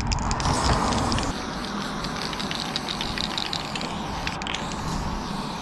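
Aerosol spray paint can spraying in a continuous hiss broken by rapid crackling clicks: the nozzle is spitting, on a can that the painter says is spraying badly.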